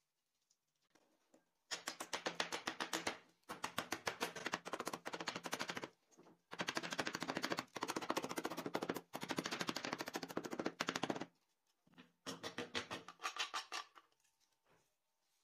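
A wood chisel driven along rows of thin wooden fins left by closely spaced saw kerfs, snapping them off one after another in rapid clicking runs. There are five runs of a second or two each, with short pauses between them.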